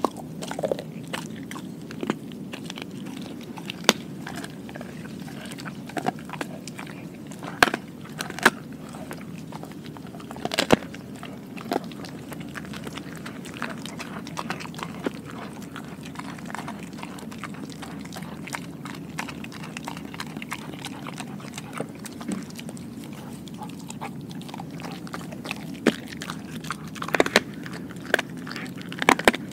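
Dog chewing raw meat close to the microphone: wet chewing with sharp crunches at irregular intervals, coming thickest and loudest near the end.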